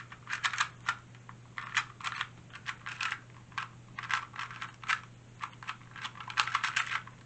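A 2x2 speed cube being turned by hand: quick bursts of plastic clicks as the layers snap round, several turns at a time with short pauses between.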